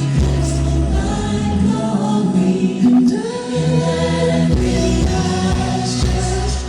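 Gospel music with a choir singing long held notes over a steady bass.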